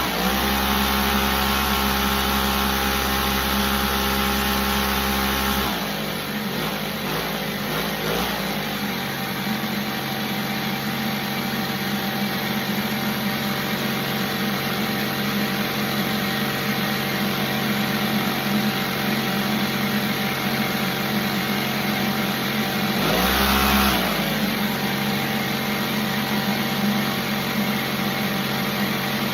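An engine held at raised revs for about six seconds, then dropping back to a steady idle, with one short rev blip near the end.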